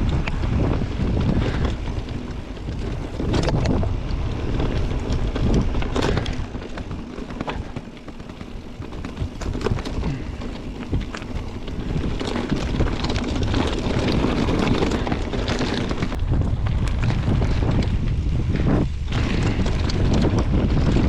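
Wind buffeting the microphone of a camera on a mountain bike riding downhill, with a steady rush of noise and scattered clicks and rattles from the bike on the trail.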